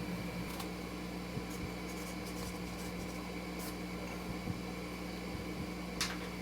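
Faint clicks and light scraping of hand work on a motorcycle engine's side cover, with a sharper click near the end, over a steady background hum.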